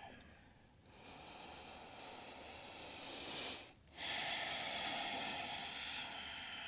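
A woman's deep breathing during yoga practice: a long breath that grows louder for about two and a half seconds and stops sharply, then a second long breath that slowly fades.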